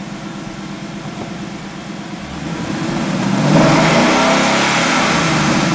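Ford Mustang GT's 5.0-litre V8 running, revved up about two seconds in and held near 3,000 rpm, heard from inside the cabin. It runs with no knocking noise, a sign that the lifters and cams are getting enough of the fresh oil.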